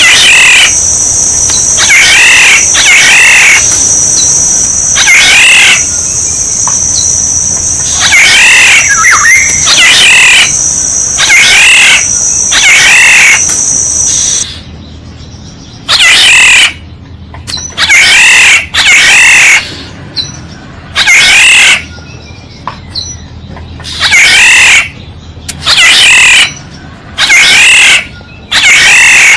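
Oriole calls, a loud recording used as a lure call for trapping, repeated about every one to two seconds and so loud that they distort. A steady high insect buzz runs under the first half and cuts off abruptly about halfway.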